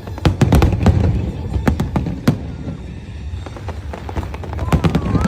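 Aerial fireworks bursting in a rapid run of sharp bangs and crackles over a low rumble. The bangs are thickest in the first second and again near the end.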